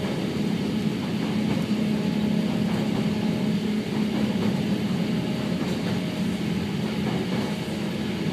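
Hakone Tozan Railway electric train running through a tunnel, heard from inside the car behind the driver's cab: a steady rumble with a constant low hum.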